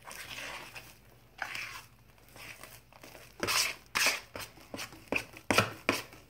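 Fluffy slime made of shaving cream, glue and borax water squishing as a hand kneads it in a plastic bowl, just as the borax starts to set it. Soft at first, then a run of short, sharper squishes from about halfway.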